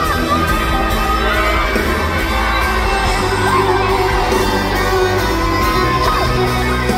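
Live pop band playing in an arena, with a woman singing lead over bass and electric guitar and the crowd whooping and cheering along.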